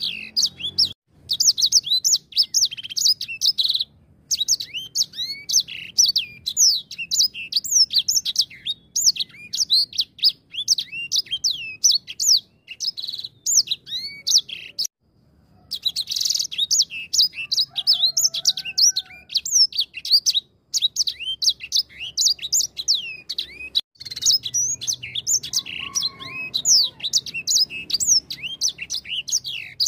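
Edel sanger (grey singing finch) singing a fast, nearly unbroken song of high chirps and sweeping whistles, with short pauses about four, fifteen and twenty-four seconds in.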